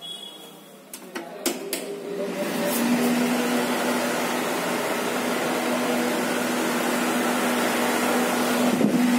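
A few clicks, then an electric air-circulator fan starts up about two seconds in and runs loudly and steadily, a rush of blown air over a constant low motor hum.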